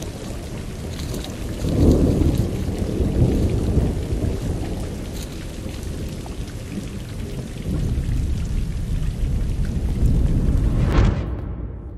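Heavy rain pouring steadily, with deep thunder rumbling about two seconds in and again in a longer roll near the end, before the sound fades away.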